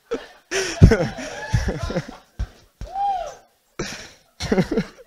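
Laughter in short, separate bursts at a joke that has just been told.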